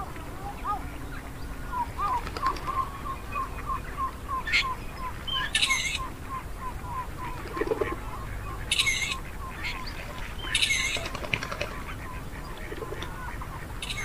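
Flock of domestic geese calling: a run of short, evenly repeated calls, a few a second, through the first half, with several louder, harsher calls breaking in.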